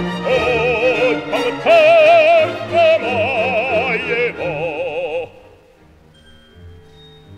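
Operatic singing over orchestral music: a classically trained voice holds long notes with a wide vibrato, then stops about five seconds in, leaving quieter, sparse orchestral notes.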